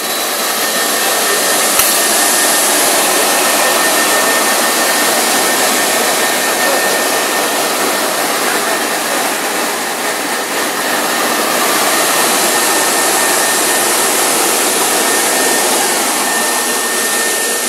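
Single-wall corrugated pipe extrusion line running: a steady, loud rush of air-like machine noise, with a thin steady high tone joining it about two seconds in.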